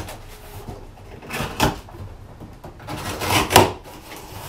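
Large cardboard shipping box being opened: packing tape pulled and cardboard flaps scraping and rustling. There are two short bursts, about a second and a half in and a louder one near the end.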